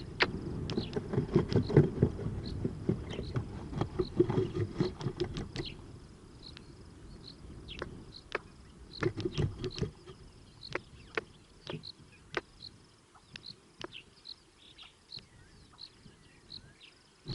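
A squirrel scrabbling on the microphone itself: sharp scratches and clicks over heavy rumbling handling noise, busiest in the first six seconds and again around nine seconds, then sparser. Through it a short high chirp repeats about once or twice a second.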